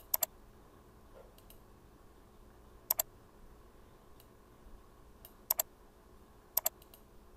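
Computer mouse button clicked four times a few seconds apart, each click a quick sharp press-and-release pair, with a few fainter ticks between.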